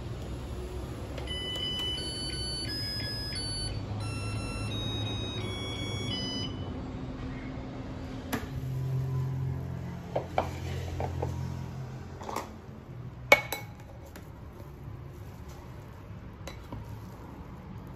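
Zojirushi NL-BGQ05 rice cooker playing a short electronic melody of beeping tones for about five seconds after its START button is pressed, signalling that cooking has begun. Then a few sharp clicks and knocks, the loudest about thirteen seconds in, from the cooker's lid and the plastic rice paddle in the inner pan.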